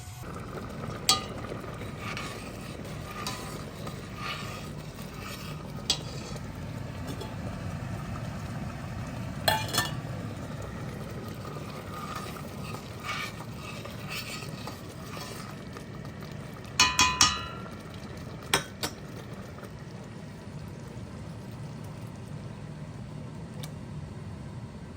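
Kitchen work: dishes and utensils clinking now and then, with a quick run of three clinks about two-thirds of the way through, over a steady low hum.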